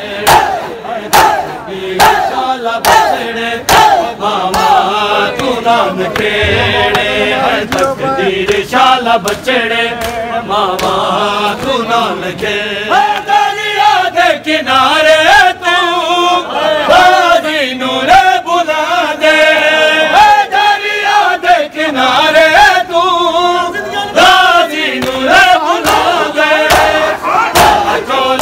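A group of men chanting a noha, a Shia mourning lament, together with the crowd. Their rhythmic chest-beating (matam) slaps keep a steady beat under the voices.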